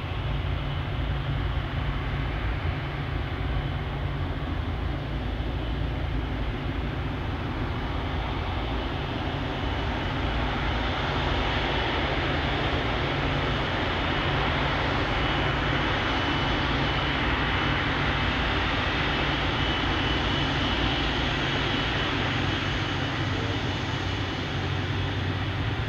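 Jet engines of an Airbus A330-300 (Rolls-Royce Trent 700) running at taxi power: a steady rumble and roar with a thin high whine, louder and brighter from about ten seconds in.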